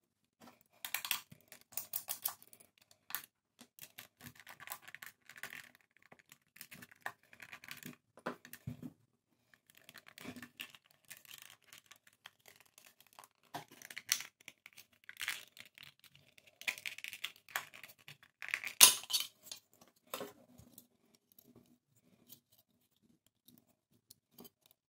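Plastic shell of a landline phone handset being handled and prised apart by hand: an irregular run of plastic clicks, scrapes and rattles, with one sharp crack about three-quarters of the way through.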